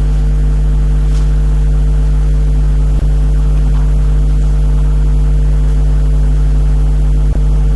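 Steady, loud electrical hum in the recording, a stack of fixed low tones, dipping for an instant twice.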